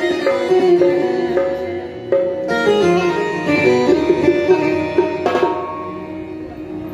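Electronic keyboard playing an Indian-style melody with a sitar-like plucked voice over a steady drone, with tabla-style percussion, for a sound check. The notes move quickly and die down near the end.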